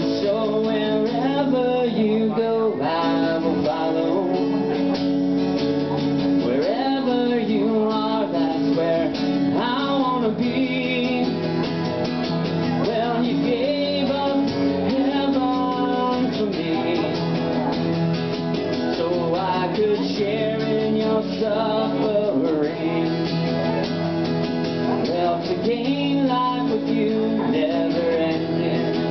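A man singing a Christian song into a microphone while strumming an acoustic guitar.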